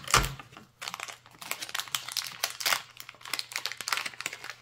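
Plastic packaging bag crinkling and rustling in a run of irregular crackles as hands pull it open and work the small gyro unit out. The sharpest crackle comes just after the start.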